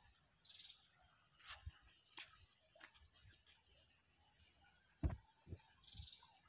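Near silence with a few soft, low thumps, the loudest about five seconds in and another just after it.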